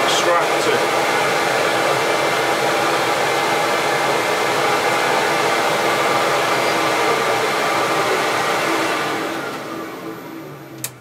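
CamVac CGV336-4 dust extractor running with both motors, a steady loud rush of motor and air. Near the end it is switched off and winds down, its pitch falling, with a sharp click.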